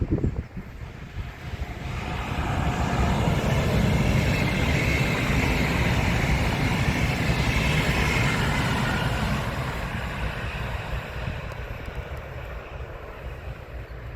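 A train passing on the line, its rumble and rail noise swelling for a couple of seconds, holding for several seconds, then fading away. A short low thump comes right at the start.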